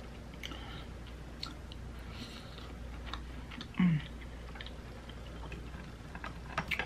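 Close-miked chewing of a mouthful of boiled seafood with the lips closed: soft wet clicks and smacks. A brief low hum of the voice falls in pitch about four seconds in.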